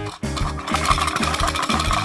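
Background music with a steady bass line. From about half a second in, a dense rasping noise plays over it.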